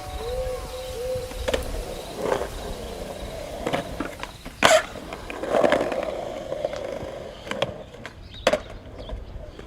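Skateboard rolling with a series of sharp clacks and knocks of the board, about seven at uneven intervals; the loudest comes about halfway through.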